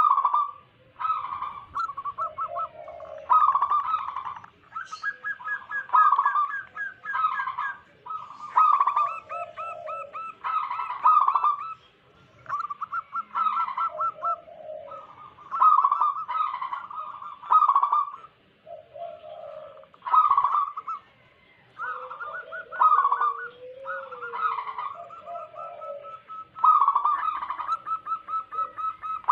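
Zebra doves (perkutut) cooing: repeated staccato phrases of rapid pulsed coos, one after another every few seconds, with higher and lower voices overlapping.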